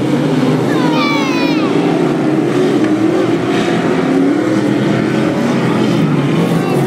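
Engines of several street stock race cars running together on a dirt oval, their pitch rising and falling as they work around the track. A voice calls out briefly about a second in.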